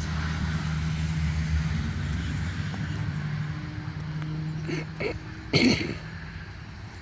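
Motor vehicle engine running with a steady hum that gradually fades. About five and a half seconds in there is a short, loud, sharp sound, like a cough or a bark.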